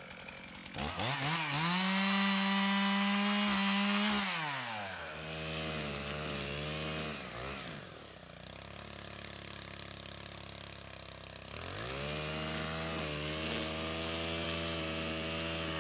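Two-stroke chainsaw revved at full throttle for about three seconds, then falling back to a lower speed. In the second half a gas string trimmer engine runs, rising to a steady cutting speed near the end.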